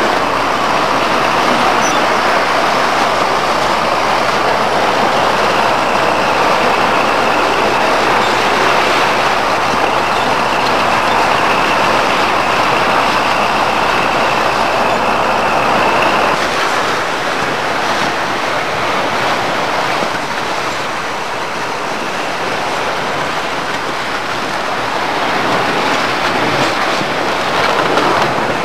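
A tracked tractor hauling a train of sleds over snow, its engine and tracks making a loud, steady clatter. The low hum drops out about two-thirds of the way through.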